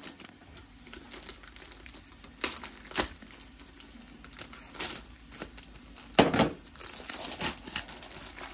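Plastic bag around a whole raw chicken crinkling and tearing as hands cut it open with a knife and pull it off, with several sharp louder crackles and rips, the loudest about six seconds in.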